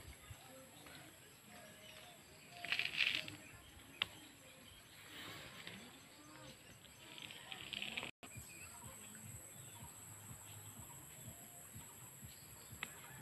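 Quiet outdoor ambience with a few brief rustling bursts and a single sharp click about four seconds in. The sound cuts out for an instant about eight seconds in.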